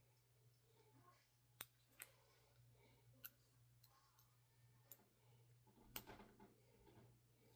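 Faint, scattered clicks and taps of small hard objects being handled, about five over several seconds, over a faint low hum.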